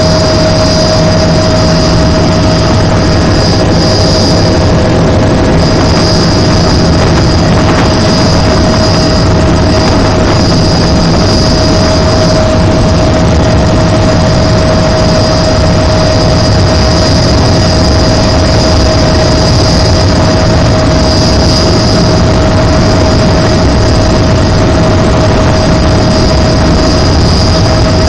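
Sikorsky helicopter's engine and rotor noise heard inside the cabin in flight: a loud, steady drone with a constant whine over it.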